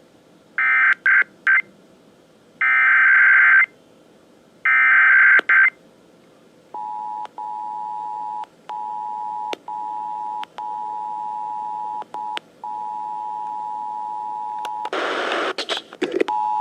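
Emergency Alert System test on broadcast radio: the SAME header, three short bursts of digital data tones about a second apart, then the two-tone EAS attention signal sounding steadily with a few brief dropouts. A short burst of noise cuts across the tone near the end.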